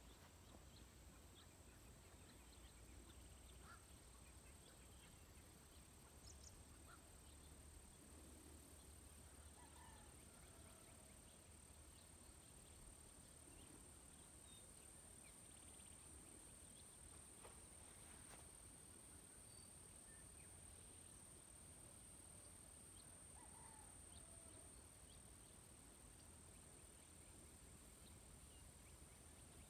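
Near silence: quiet countryside ambience with a few faint, scattered bird chirps over a steady, faint high-pitched tone.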